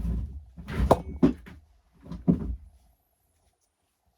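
Several short knocks and clicks of hard parts being handled and set down, five or so spread over about a second and a half.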